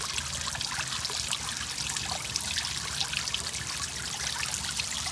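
A steady, soft trickle of liquid with many small splashes and drips.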